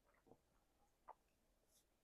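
Near silence: room tone with two faint short clicks.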